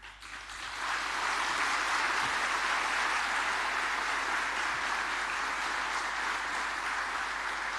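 An audience applauding: sustained clapping that swells up within the first second and then holds steady.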